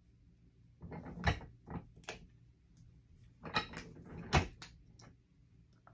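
Hand-operated tabletop snap press being worked twice to set a spring snap through vinyl. Each stroke is a short clatter of the mechanism ending in a sharp metal clack, one about a second in and the second about three seconds later.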